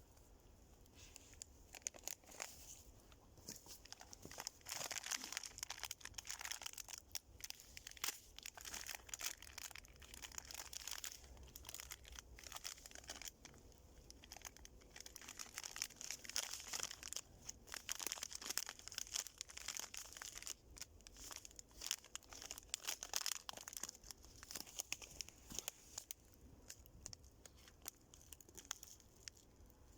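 Dry pine logs of a nodya fire crackling and popping steadily with a light hiss, in many irregular small snaps.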